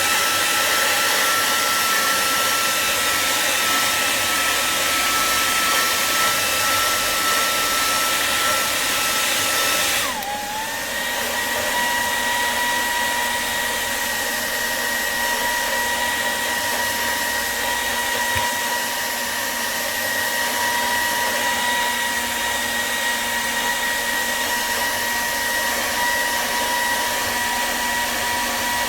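Hot-air blower switched on just before and running steadily with a fan whine and a rush of air; about ten seconds in it drops to a lower speed setting, the whine falling in pitch, and keeps running. It is heating the phone's back panel to soften the adhesive before prying.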